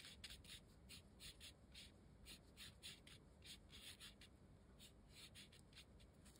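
Faint, quick strokes of a paintbrush scrubbing wet paint onto textured watercolour paper, a few soft scratchy strokes a second.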